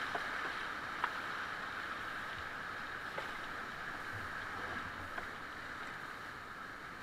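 Rushing whitewater around an open canoe, gradually easing as the rapid runs out into calmer water, with a few sharp knocks scattered through it.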